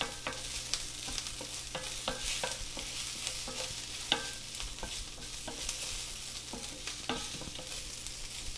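Sautéed onion and freshly chopped garlic sizzling in a skillet, with a utensil stirring and tapping against the pan in a string of light, irregular clicks.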